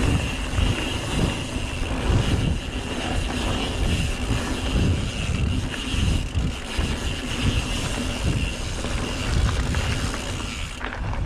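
Mountain bike riding down a trail: tyres rolling and the bike rattling over bumps, with wind buffeting the microphone as a steady, uneven rumble.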